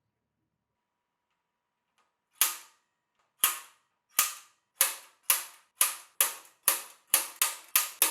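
Hammer striking sheet steel: about a dozen sharp, ringing blows starting about two seconds in, coming faster and faster toward the end.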